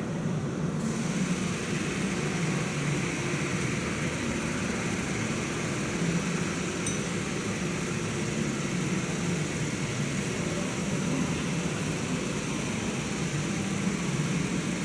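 Diesel locomotive running: a steady, even engine and rolling rumble.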